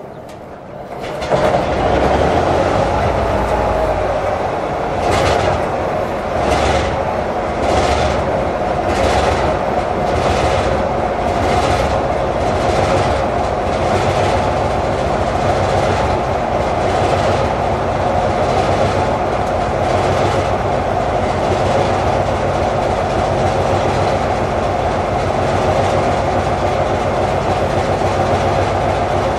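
A 1970 Dalian-built DF-class diesel-electric locomotive starting up. The engine catches about a second in and then runs loud and steady, with a regular pulse about once a second that dies away after about twenty seconds.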